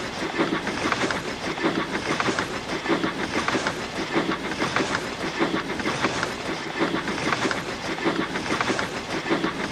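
Steam locomotive sound effect: steady, even puffing with the clickety-clack and clanking of rolling stock running on the rails.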